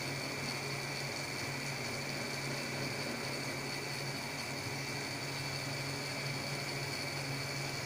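Gear motor of a Taber-type paper stiffness tester running steadily as it turns the sample clamp to bend a paper test strip: an even hum with a thin, high whine over it.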